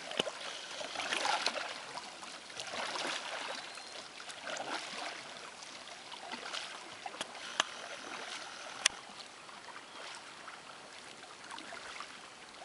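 Kayak paddle strokes in calm water: the blades dip and pull, splashing and dripping about once a second or so, and the sound fades as the kayak moves off. A couple of sharp clicks come about two-thirds of the way through.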